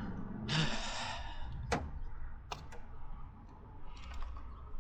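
A breathy exhale lasting about a second, starting half a second in, followed by a few sharp clicks and taps.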